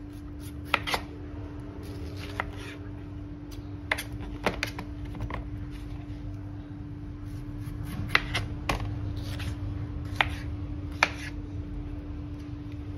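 Kitchen knife cutting a peeled pineapple into pieces on a plastic cutting board: about ten sharp, irregular taps as the blade goes through the fruit and knocks the board, over a steady low hum.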